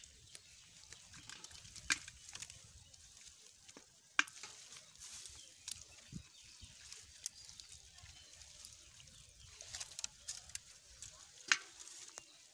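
Hands rummaging through wet pond debris of leaves, stems and mud heaped on a plastic net: soft rustling with scattered sharp crackles and snaps, a few seconds apart.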